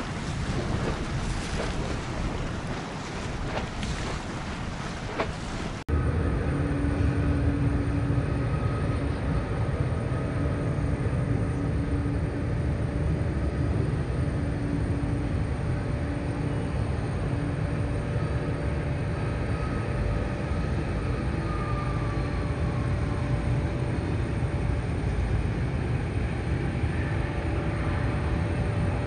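Wind buffeting the microphone for the first few seconds. After a sudden cut, a steady low rumble with a faint steady whine: an Airbus A320's jet engines at idle thrust while it taxis.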